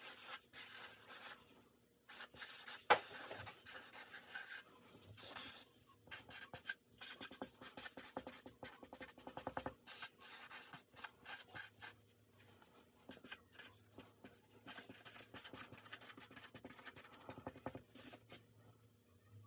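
A Sharpie felt-tip marker scratching across paper in many short strokes as letters and a drawing are made, with one sharp tap about three seconds in. The strokes stop shortly before the end.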